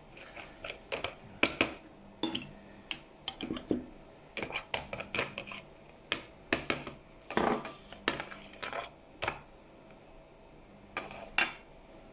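Metal spoon clinking and scraping against a glass jar and a plastic tub, scooping chili paste and stirring it into soy sauce. Irregular sharp clinks, with a short lull about ten seconds in.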